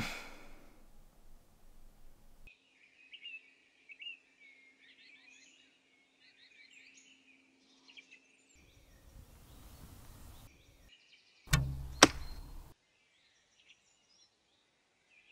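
Birds singing, then a bow shot with two sharp cracks about half a second apart, the loudest sound here.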